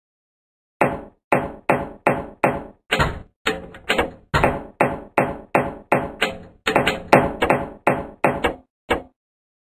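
A run of sharp knocks, irregularly about two to three a second, starting about a second in. Each knock rings briefly as it dies away.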